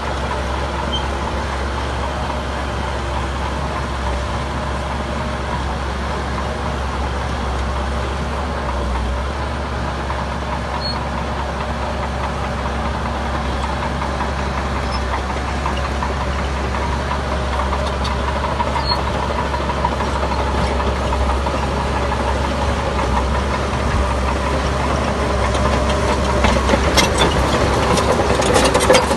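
Heavy diesel earthmoving machinery running steadily with a deep, constant rumble. It grows a little louder in the last few seconds, and sharp metallic clanks come in near the end.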